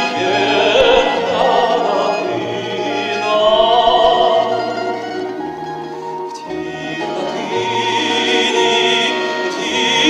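A male singer singing a Ukrainian song in long, held notes with vibrato, over a soft instrumental accompaniment.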